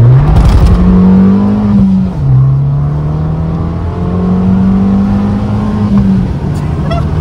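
Abarth 500's turbocharged 1.4 T-Jet four-cylinder with a stage 1 remap and stainless exhaust silencer, heard from inside the cabin under full-throttle acceleration from a standing start. The engine note climbs hard, drops sharply about two seconds in and again near six seconds as it shifts up, then climbs again.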